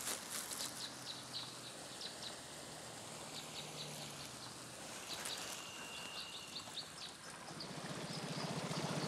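Birds chirping over quiet riverside ambience. From about three-quarters of the way in, the even hum of a small boat's outboard motor grows louder as the boat approaches.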